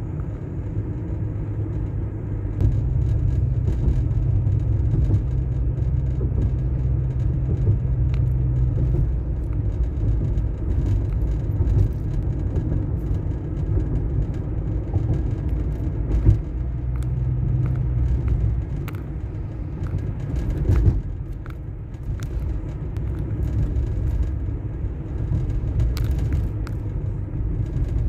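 Car's engine and road rumble heard from inside the cabin while driving through slow city traffic, the engine note rising for a few seconds early on and again briefly later, with a couple of sharp knocks.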